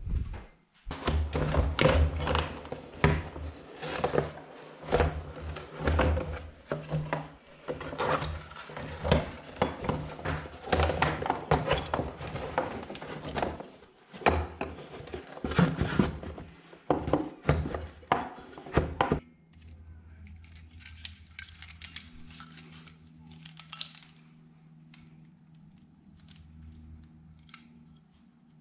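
Hand tools and metal parts clinking and knocking in rapid, uneven strikes for about the first twenty seconds. The strikes then give way to a fainter, steady low hum with only occasional clicks.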